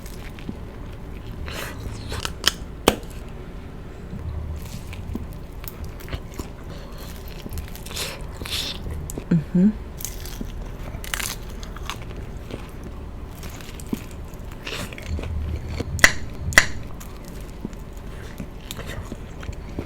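Close-miked biting and chewing of crispy fried egg rolls: steady wet chewing broken by sharp crunches, two near the start and two more, the loudest, near the end.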